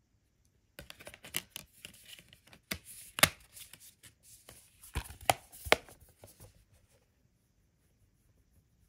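A metal 4K Blu-ray SteelBook case being handled and turned over in the hands: a run of sharp clicks and taps over about six seconds, the loudest a few seconds in, stopping about seven seconds in.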